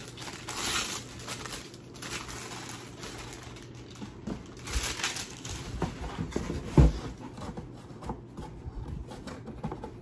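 Packaging rustling and crinkling as items are handled and unpacked, with scattered clicks and a louder knock about seven seconds in.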